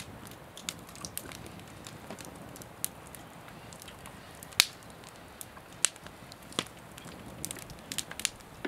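Wood campfire crackling with scattered sharp pops, along with light clicks of a knife and fork slicing cooked brisket on a wooden cutting board.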